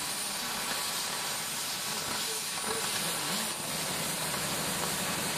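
Oxy-fuel cutting torch blowing a steady hiss as its jet cuts through steel plate.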